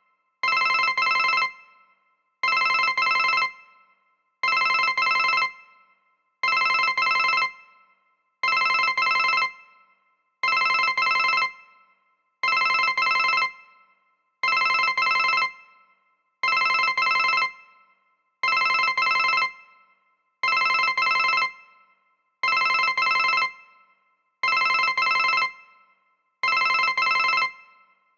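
ZTE WeGo S155 cell phone playing a ringtone that imitates a telephone bell: a double ring repeating about every two seconds at a steady level.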